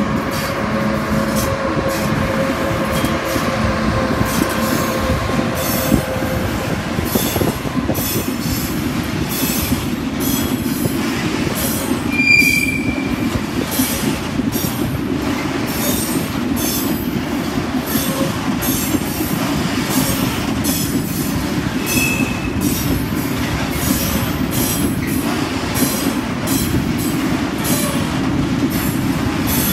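A freight train passing over a level crossing: the locomotive goes by first, its steady tones fading over the first few seconds. Then comes the continuous rumble and clatter of wagon wheels on the rails, with two short, high wheel squeals, one near the middle and one about three-quarters through.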